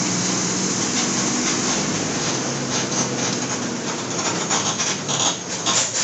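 Mercedes-Benz OF-1722 city bus heard from on board: its diesel engine running under way with road noise and body rattles. Sharp clicks and knocks come through in the second half.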